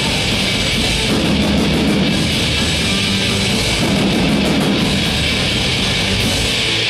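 Live punk rock band playing: electric guitar, bass guitar and drum kit together, steady and loud.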